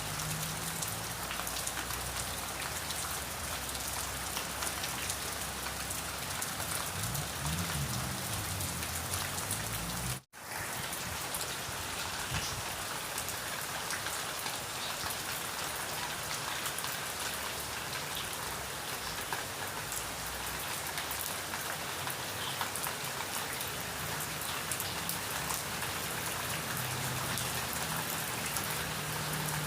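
Steady rain falling, an even hiss of drops, which breaks off to silence for an instant about ten seconds in and resumes at once.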